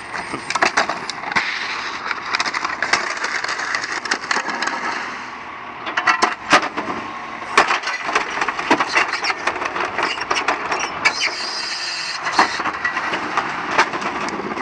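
Household junk and recycling crashing into a Heil 5000 rear-loading garbage truck's hopper as carts are tipped in: a rapid run of sharp cracks, snaps and clatters of breaking items. The loudest cracks come about six seconds in and again near twelve seconds.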